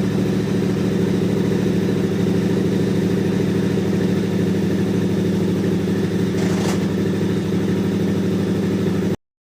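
KTM 990R motorcycle's V-twin engine running steadily, with a strange noise the owner noticed after swapping a Rekluse automatic clutch into it. The sound cuts off suddenly near the end.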